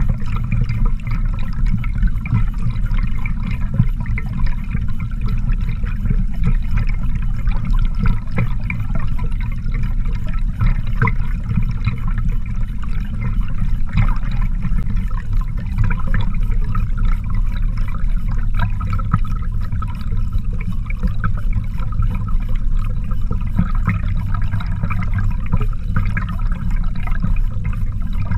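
Underwater sound beside a trolled Elgin God's Tooth dodger and God's Tooth spoon kokanee rig: a steady low rumble of water rushing past the camera, with light irregular ticking above it.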